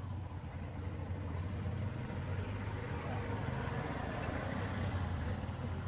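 A motorbike passing on the road, its engine and tyre noise building to a peak about four to five seconds in over a steady low rumble. A few faint high chirps come through.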